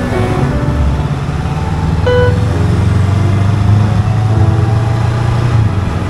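Road traffic: a steady low rumble of vehicle engines and tyres, heavier from about two seconds in.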